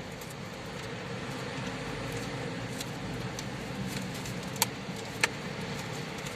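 Car running and moving off, a steady hum and road noise inside the cabin, with two sharp clicks a little over half a second apart about two-thirds of the way through.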